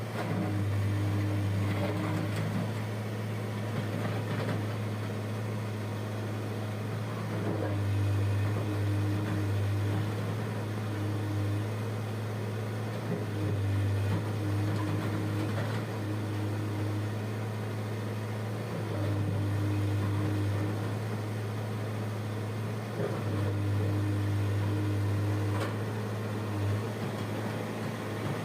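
Diesel engine of heavy construction machinery running steadily, with its note rising and growing louder for a couple of seconds about every five seconds as the machine comes under load, then settling back.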